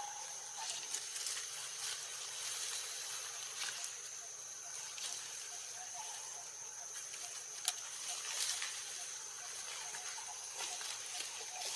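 Steady high-pitched insect trill over a faint background hiss, with a few light clicks and rustles and one sharp click a little under eight seconds in.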